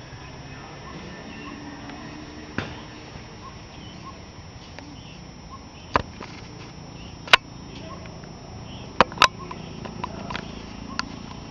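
A handful of sharp, separate taps or knocks, about seven spread irregularly, with a close double tap about nine seconds in, over a faint steady background murmur.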